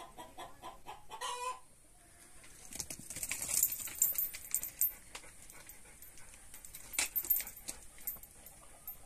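A chicken clucking in a quick, even run of about four clucks a second, ending in a louder call about a second and a half in. After that come scattered clicks and rustling, which are the loudest sounds, peaking around three to four seconds in and again near seven seconds.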